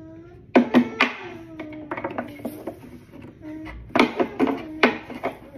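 A small plastic cup banged repeatedly on a wooden children's desk top, sharp knocks in quick clusters about half a second in and again from about four seconds in, with a toddler's sing-song vocalising between them.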